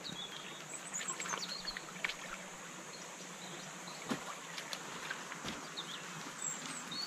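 Shallow creek flowing over stones, with footsteps splashing through the water and knocking on river stones. Birds chirp a few times.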